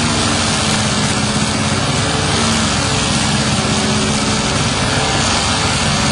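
BRON forestry mulcher running under load, its powered cutting head grinding into a tree trunk: a steady engine hum under a constant, dense hiss of chipping wood.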